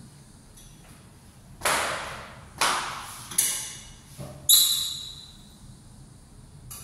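Metal window grill clanking against the window frame as it is handled and fitted: four sharp knocks about a second apart, each fading quickly, the last one ringing.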